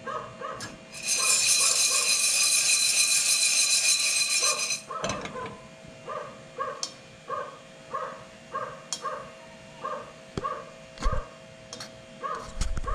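A puppy yelping over and over, about two short yelps a second. About a second in, a loud steady hiss starts and runs for nearly four seconds before cutting off.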